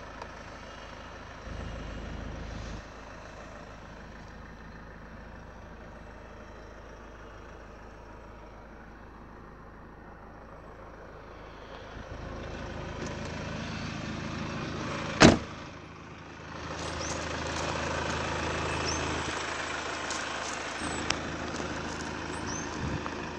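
Ford Galaxy's engine idling steadily, with one loud car-door slam about fifteen seconds in. After the slam the idle continues with more hiss.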